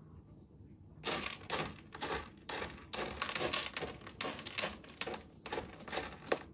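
Cat pawing and raking cat litter in a litter box: a run of quick, gritty scrapes, several a second, starting about a second in.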